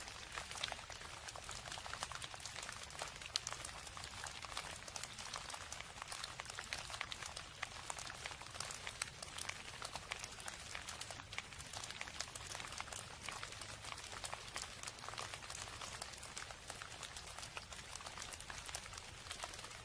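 Steady rain: a dense, even patter of many small drops.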